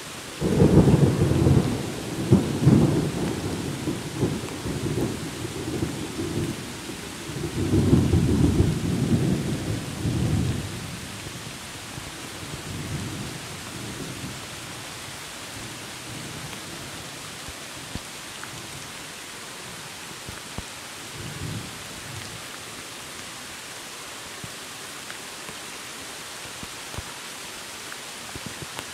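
Thunder over steady rain falling on a tropical forest. A loud deep rumble breaks suddenly about half a second in and rolls on in swells, peaking again around eight seconds, then fades after about ten seconds. Fainter distant rumbles come twice later.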